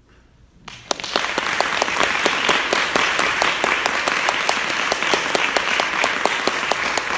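Audience applause, breaking out less than a second in after a brief hush and continuing as steady, dense clapping.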